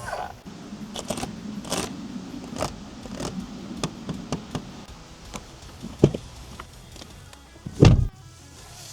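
Seat Ibiza's fittings being operated: a low motor hum for the first few seconds, a series of sharp clicks and knocks, and one heavy thud about eight seconds in.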